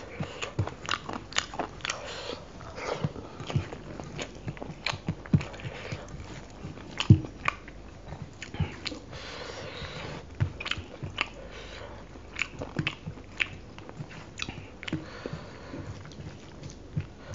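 Close-miked eating sounds: wet chewing and lip smacks of a mouthful of rice and chicken curry, with irregular sharp clicks, and squishing as fingers mix the rice and curry on a steel plate.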